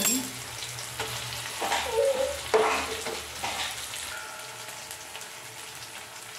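A slotted metal spatula scraping and stirring in a metal kadai, about four strokes in the first few seconds, the loudest about two and a half seconds in. Under it, onion and tomato sizzle in oil, quieter after about four seconds.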